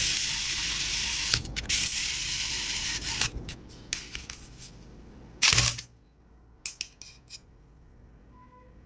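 A loud hiss of blown air in spurts, which stops about three seconds in. One more short blast comes a little after five seconds, followed by a few light clicks from handling the card.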